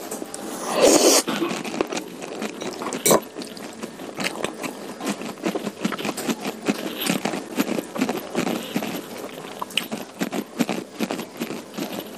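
Close-miked eating sounds: a person chewing a mouthful of food with many small wet clicks and smacks, a louder noisy moment about a second in and a sharp click about three seconds in.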